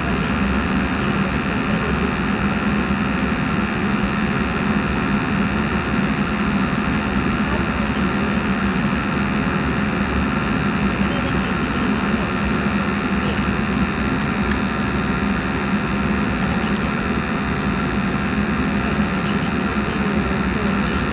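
A 2.5-ton gas package unit running in heating with its burner firing: a steady, even drone of fan and burner noise with a low hum.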